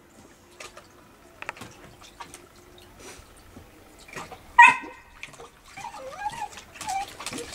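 A puppy laps and splashes water in a plastic tub, making faint wet clicks. About halfway through a dog gives one sharp yip, the loudest sound. Wavering whimpers follow near the end.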